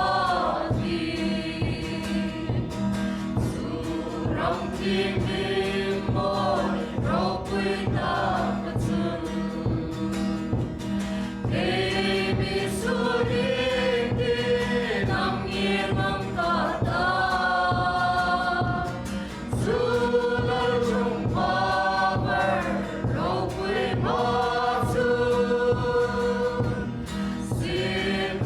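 A group of voices singing a gospel hymn with instrumental accompaniment, sustained sung notes over a steady beat.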